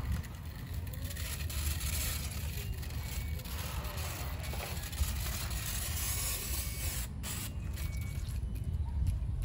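Hand-pump pressure sprayer misting water with a steady hiss, breaking into shorter spurts with brief gaps near the end.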